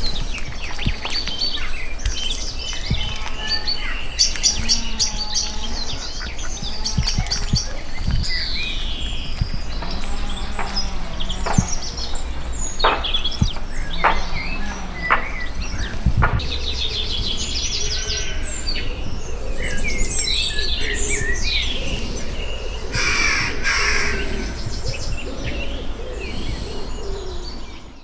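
Wild birds singing and calling, with many short chirps and whistled phrases, over a steady low rumble.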